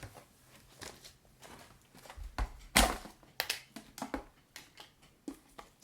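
Pringles chips and their cans being handled: a string of sharp crackles and clicks, the loudest about three seconds in, with a quicker run of small crackles after it.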